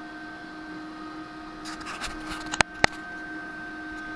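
Steady hum with several held tones from the running homemade induction heater rig, with its power supply and cooling fans. About two seconds in, handling rustles and then two sharp clicks, the loudest sounds.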